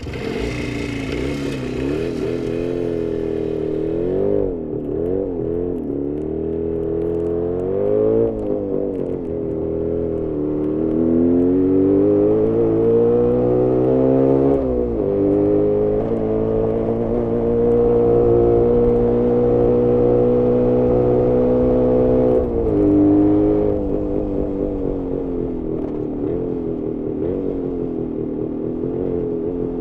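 Jawa 350 638 two-stroke twin motorcycle engine heard onboard under riding throttle. Its pitch wavers at first, then climbs steadily and drops sharply about halfway. It holds steady for several seconds and drops again later. The engine is running very lean and short of power.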